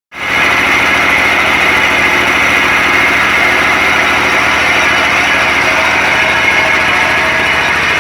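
Brick press machine's engine running steadily.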